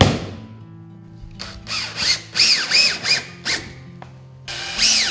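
A hammer blow right at the start, then a cordless drill driving screws through the base of a lead pipe boot flashing in short trigger squeezes, the motor whine rising and falling with each burst; a second run of bursts comes near the end.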